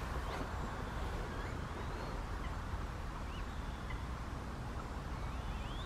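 Quiet pondside ambience: a few faint, scattered bird chirps over a steady low background rumble.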